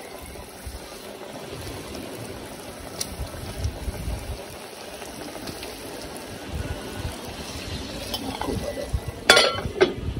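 Battered stingray pieces sizzling and bubbling in hot oil in a cast-iron pot. Near the end there are two sharp metal clanks as a metal lid is set on the pot.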